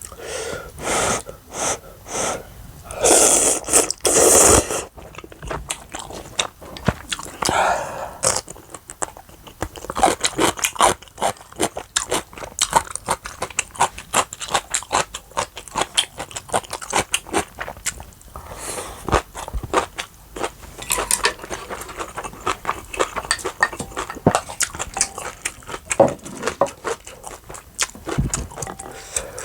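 Close-miked chewing: a person biting and crunching food with many crisp clicks, typical of a mukbang, with a louder hissy sound about three seconds in.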